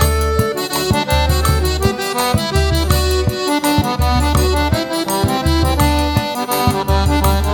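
Forró pé de serra instrumental passage: accordion playing the melody over a steady beat of zabumba bass drum and triangle.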